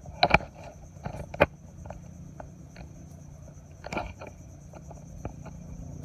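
Handling noises of a landed fish and rod among mangrove roots: a few sharp clicks and knocks, the loudest two within the first second and a half, with scattered light rustles. Underneath runs a steady high insect trill.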